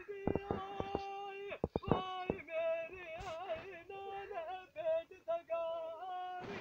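A man singing Punjabi dhola folk verse solo and without instruments, holding long high notes that waver and bend. Several short sharp knocks sound in the first two and a half seconds.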